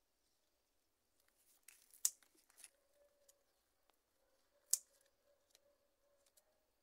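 Hand scissors snipping plant stems in a pot: a few sharp cuts, the loudest about two seconds in and another near five seconds, with lighter clicks between.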